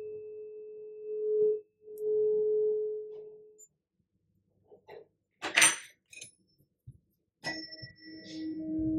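Metal tuning forks ringing. A steady pure tone breaks off briefly and then fades away. After some handling noise and a sharp clink, a second fork is struck, giving a lower tone that rings on steadily.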